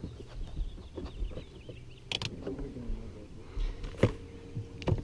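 Scattered knocks and clicks of hands handling gear on a bass boat's deck, around an open plastic tackle box, over a low rumble. Two sharper knocks stand out, about two seconds in and about four seconds in.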